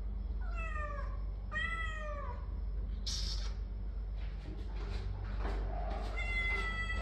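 Cat meowing: two short meows falling in pitch about a second in, a brief burst of high noise around the middle, then a longer, steadier meow near the end.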